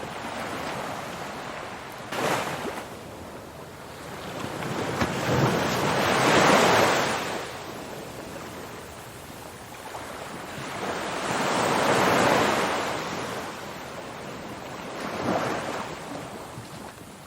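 Ocean surf: waves breaking and washing in, the rushing noise swelling and falling away about four times, with the biggest swells a quarter and two thirds of the way through.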